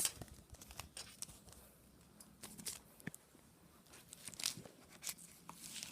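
Scissors cutting into a keyboard's shipping packaging: faint, scattered snips, scrapes and rustles of cardboard and plastic.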